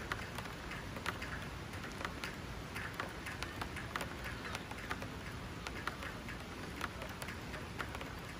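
Steady rain falling, with many irregular, sharp ticks of single raindrops striking a hard surface.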